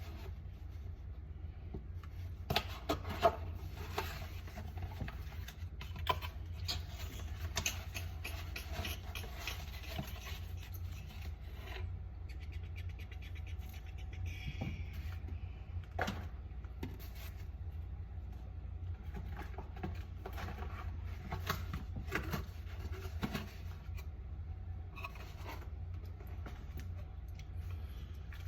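Scattered knocks, clicks and scrapes of hands handling refrigerator parts and tools, over a steady low hum. There is a quick run of fine ticking about halfway through.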